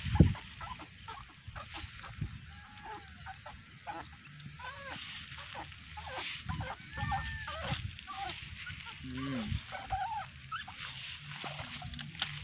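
A sharp thump right at the start, then scattered short honking animal calls through the middle, over a steady low rumble.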